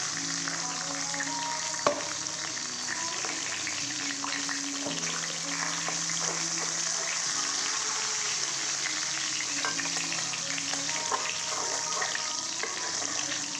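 Hot oil sizzling and crackling in a pan as fish pieces fry, with a single sharp knock about two seconds in.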